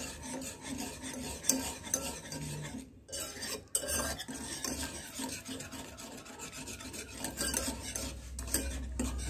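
Wire balloon whisk stirring a thickening caramel milk-and-cornflour pudding mixture in a granite-coated pan, the metal wires scraping and sloshing in quick repeated strokes. The stirring breaks off briefly about three seconds in.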